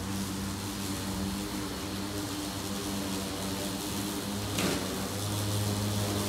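EGO Select Cut XP battery-powered self-propelled mower running steadily, its electric motor and dual blades cutting through long, wet grass with a steady hum. A brief sharp crack comes about four and a half seconds in. The hum then grows a little louder as the mower comes closer.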